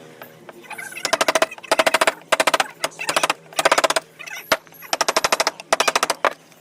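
Wood carving chisel struck very rapidly with a mallet, in short bursts of quick sharp taps with brief pauses between them.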